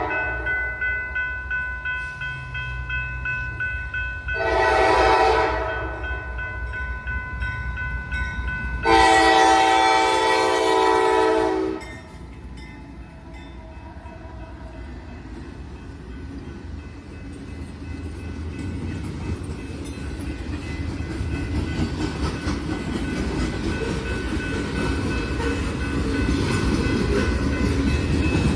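Norfolk Southern freight locomotive horn blowing for a grade crossing: one blast ends just at the start, a shorter blast comes about four seconds in and a longer one about nine seconds in. After the horn stops, the train's rumble and wheel noise grow steadily louder as it approaches.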